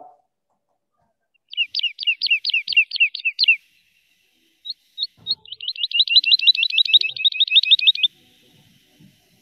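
Recorded song of a Eurasian skylark played back. There are two runs of quick, repeated high chirping notes: the first lasts about two seconds, and after a short pause a faster trill lasts about three seconds.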